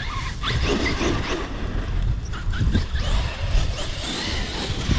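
Traxxas X-Maxx electric RC monster truck running over dirt, with a faint motor whine over a steady rumble of wind on the microphone.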